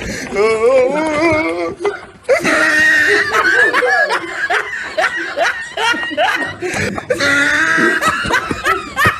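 Human laughter, loud and going on for several seconds, with a short dip about two seconds in.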